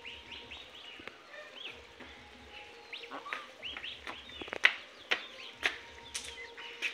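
Goslings peeping, a steady run of many short, high cheeps that rise and fall. From about the middle, a few sharp clicks or taps stand out as the loudest sounds.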